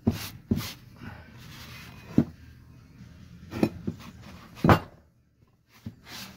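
A cloth rubbing loosened rust off a vinegar-soaked steel axe head in quick strokes, with the head scraping and knocking against a wooden plank. The loudest knock comes about two-thirds of the way through, followed by a short pause before the wiping resumes.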